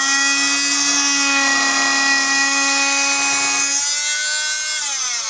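Ferrex oscillating multi-tool with a saw blade fitted, running with a steady high whine; its pitch falls near the end.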